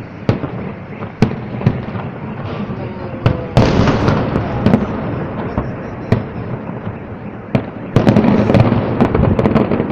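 Aerial fireworks shells bursting: a string of sharp bangs, each echoing away, with two louder spells of dense crackling, about three and a half seconds in and again from about eight seconds in.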